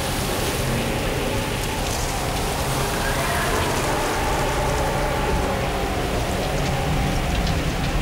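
Steady rushing wind, with a low humming drone held beneath it.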